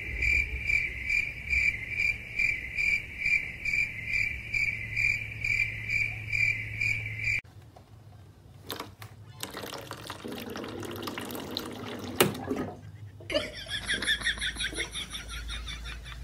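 A high, steady chirping that pulses about two to three times a second, then stops abruptly. After that come a few sharp knocks, and from about two-thirds of the way in, water hissing out of a water-dispenser tap as a cat paws its lever.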